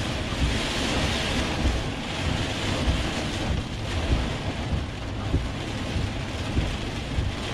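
Steady rushing noise inside a moving vehicle's cabin: road and engine rumble mixed with wind during a storm.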